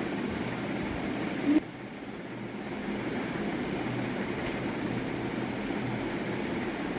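Steady low background hum. About a second and a half in, a short tone sounds and the hum dips for about a second before it returns.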